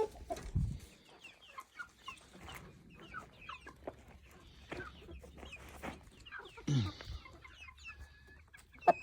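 A flock of chickens clucking and chirping softly, many short high calls. This is the evening chatter of hens settling onto the roost, with one louder falling call about seven seconds in.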